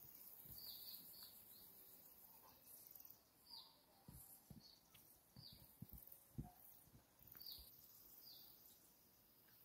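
Faint outdoor ambience: a bird repeating short, high, falling chirps about once a second over a steady high hiss, with a few soft low thumps near the middle.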